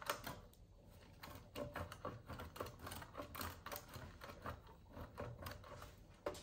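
Block of cheese rubbed down a stainless steel box grater in repeated short rasping strokes, a few a second, with a brief pause about a second in.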